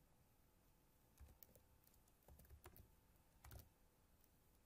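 Faint typing on a computer keyboard: a few scattered keystrokes in small clusters, with quiet room hiss between them.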